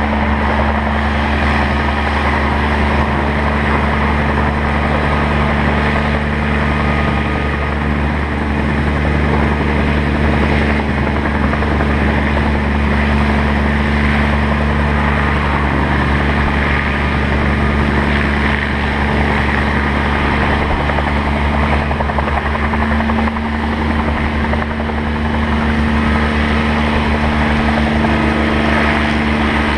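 Bell 47 G-2 helicopter running on the ground, its piston engine and turning rotor giving a loud, steady drone that holds one pitch without rising or falling.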